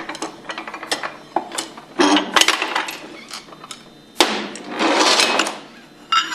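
Metal knocking, clinking and scraping as the shaft and rotor assembly is driven out of a Hypro pump housing using a cradle and a bolt. There are two longer stretches of grinding scrape, and a sharp clink near the end that rings on briefly.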